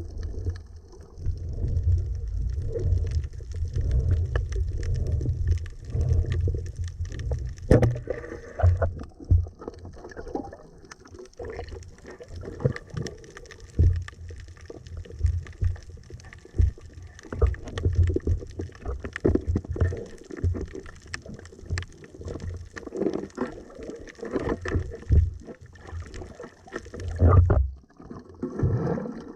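Underwater sound during a night dive: a heavy, uneven low rumble of water movement with frequent scattered clicks and knocks. It drops away briefly near the end.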